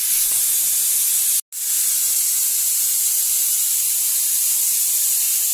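Aluminium stovetop pressure cooker whistling: steam escapes past its weighted vent in a loud, steady hiss, which breaks off for an instant about a second and a half in. The whistle means the chickpeas inside are cooking at full pressure.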